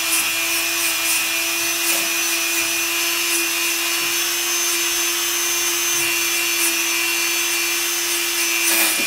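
Dremel rotary tool running at a steady high speed, its small brush wheel scrubbing old graphite-and-tallow residue out of the spring slots of a grand piano action's wooden repetition levers: a constant whine over a rubbing hiss, which stops abruptly at the end.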